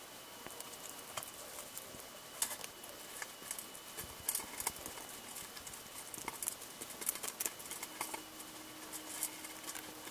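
Golden hamster chewing a flat horn hissing cockroach: quick, irregular crunching clicks in clusters as it bites through the insect's body.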